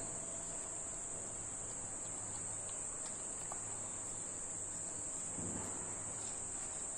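Crickets trilling: a steady, unbroken high-pitched chirring that holds level throughout.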